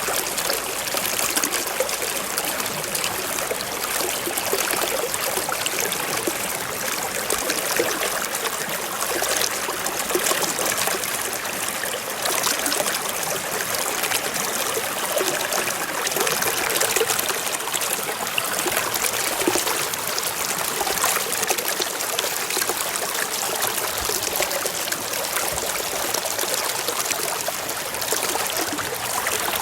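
Stream water flowing and splashing over rocks, a steady, even rush with fine trickling detail.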